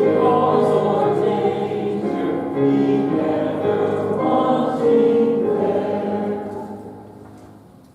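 Voices singing a hymn together, the final phrase held and then dying away about seven seconds in.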